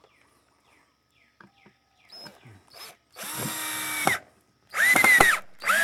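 Power drill driving a wood screw into 2x4 lumber, run in short pulls of the trigger. After a few faint knocks, the motor runs for about a second, then again more briefly with its pitch rising and dropping as the screw bites, and starts a third time right at the end.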